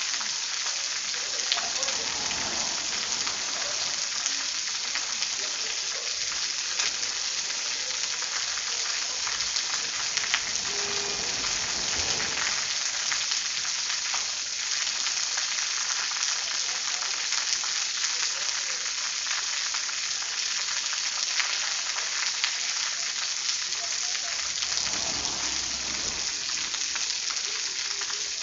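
Steady rain falling, a dense even hiss full of fine crackling drop impacts. Three times a faint low swell rises under it briefly.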